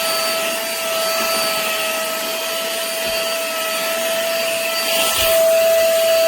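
Cordless handheld vacuum's small high-speed motor running steadily with a high whine and airflow hiss, growing louder about five seconds in.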